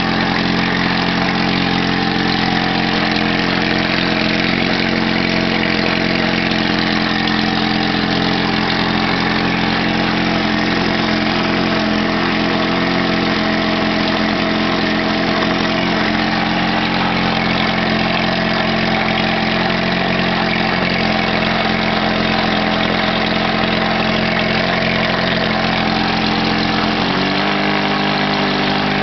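Kiekhaefer Mercury KG7 Super 10 Hurricane outboard, a two-cylinder two-stroke, running steadily in a test barrel of water. Its engine note steps up slightly near the end.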